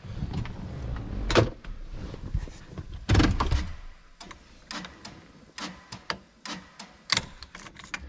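Handling noises at a truck's stripped steering column: hands and plastic parts knocking, rubbing and clicking. There are two louder knocks, about one and a half and three seconds in, and a run of sharp clicks in the second half.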